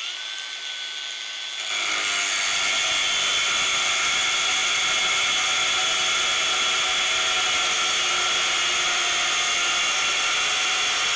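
A cheap cordless angle grinder with a cut-off wheel, in high power mode, spins up with a rising whine and runs free on one steady tone. About two seconds in, the wheel bites into steel bar stock and gives a loud, steady cutting screech with sparks.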